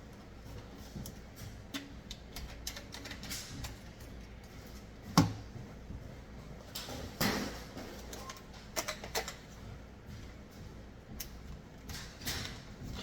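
Irregular clicks and clattering knocks of hard objects being handled, with one sharp knock about five seconds in.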